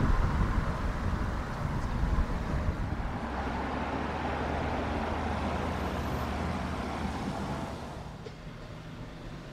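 A heavy vehicle's engine rumbling, with a steady low hum from about three seconds in, then fading away near the end.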